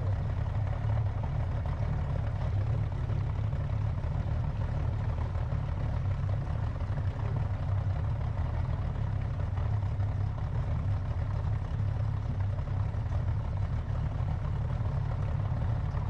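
Boat engine running steadily at low speed, an even low hum.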